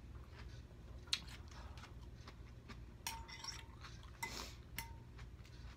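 Metal fork clinking against a glass bowl of noodles and broth: four light clinks spread over a few seconds, two of them ringing briefly.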